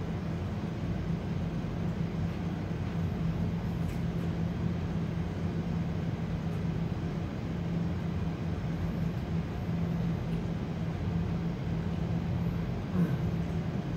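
Steady low machine hum, like an appliance running in the room, with a few faint clicks.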